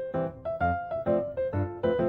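Background music: bouncy piano (keyboard) notes and chords with a steady beat.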